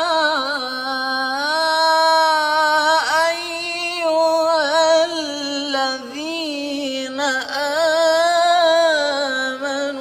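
A man singing alone, without accompaniment, in a slow chant-like melody of long held notes that waver and bend in pitch, pausing briefly between phrases.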